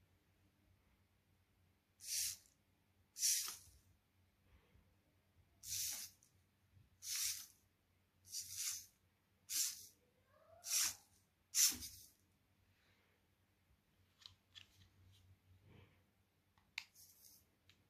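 A hexapod robot's hobby servos whirring in eight short bursts, one after another, each about half a second long, as the gamepad shifts the robot's body. A few faint clicks and one short whir follow near the end.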